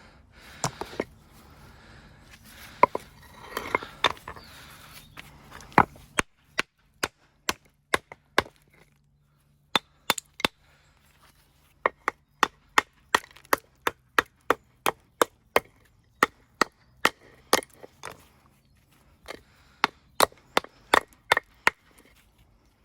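Hammer striking stone in a long run of sharp, evenly paced blows, about two a second, after a few scattered knocks in the first six seconds, typical of shaping or breaking up stone for a dry stone wall.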